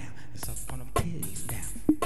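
Hip hop track: a steady drum beat with hi-hats, the strongest strike about once a second and lighter hits between.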